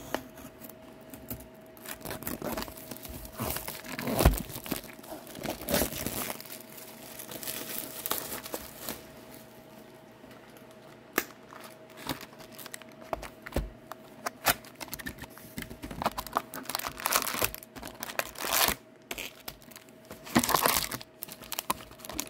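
Plastic wrapping and cardboard crinkling and tearing in irregular bursts, with a few sharp taps, as a sealed box of hockey card packs is opened.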